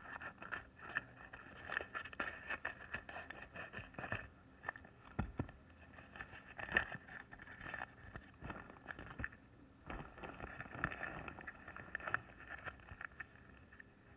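Paper and clear plastic wrapping crinkling and rustling in the hands as a homemade paper squishy is taken out of its paper packet, with a few sharper crackles.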